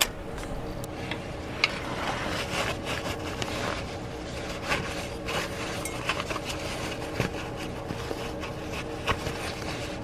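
Metal pick scratching and clicking against the engine block's oil filter adapter seat as remnants of the old gasket are pried out, mixed with a rag rubbing over the oily surface. The sound is a steady run of small irregular clicks and scrapes.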